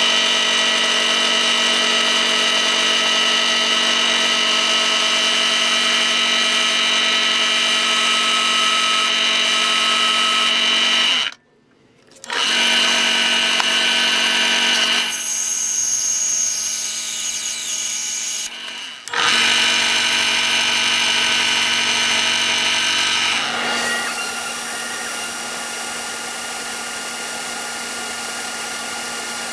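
Electric power tool motor running steadily. The sound breaks off and changes character a few times, as at cuts between clips.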